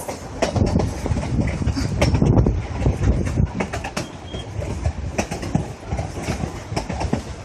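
Narrow-gauge railroad passenger car rolling along the track, heard from on board: a steady low rumble with frequent clacks and rattles of wheels and car body, loudest about two seconds in.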